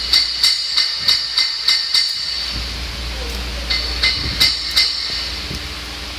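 Light hammer taps on steel cylinder-head valve parts, about three a second, each strike ringing high and metallic, in two runs with a pause about midway.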